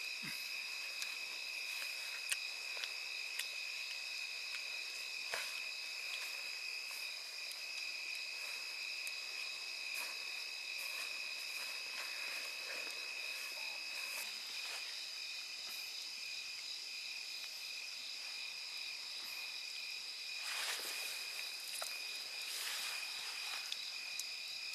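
A chorus of night insects trilling steadily in several high, even tones, with scattered sharp pops from a wood campfire.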